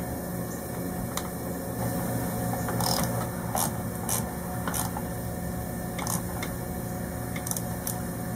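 Hand work on a boat's battery-switch wiring: about ten short, irregular clicks and scrapes of cables and fittings being handled and fastened, over a steady low hum.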